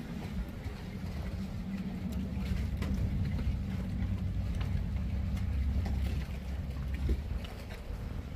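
Motorboat engine running steadily as a low hum, strongest through the middle and easing off about six seconds in.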